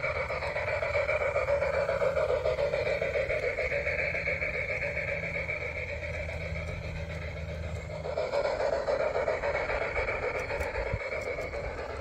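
G-scale model train rolling along its garden track: a steady mechanical running noise from the drive and wheels, with a fast flutter, getting louder again about eight seconds in.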